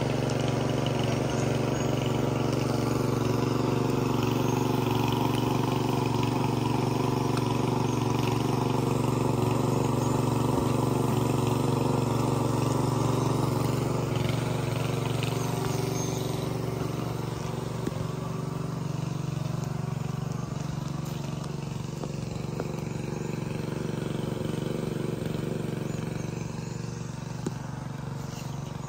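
A small engine running steadily at a constant speed, as an even hum, growing somewhat fainter in the second half.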